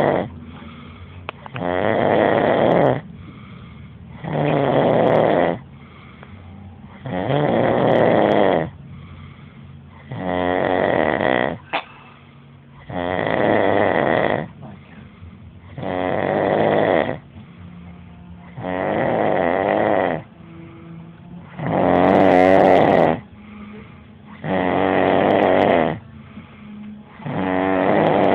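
A person snoring loudly and steadily, one long snore about every three seconds, with quieter breathing in between.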